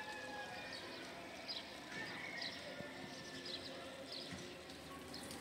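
Faint outdoor ambience with scattered short, high chirps of small birds.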